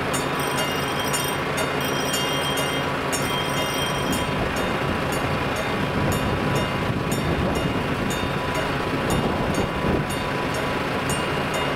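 Level-crossing warning bell ringing in rapid regular strokes as the barriers come down, over a steady low engine idle. The bell's ringing tones die away about four seconds in, leaving fainter rapid ticks. A car's engine and tyres grow louder near the end as it pulls up to the closed crossing.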